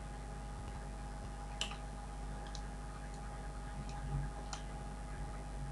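A few faint, sharp clicks at uneven intervals over a steady low electrical hum.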